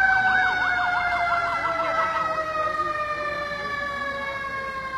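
Emergency vehicle sirens: a fast warbling siren that cuts off about two and a half seconds in, over a second, steady siren tone that slowly falls in pitch.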